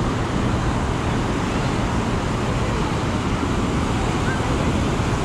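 Steady roar of beach ambience: surf and wind, with road traffic noise mixed in.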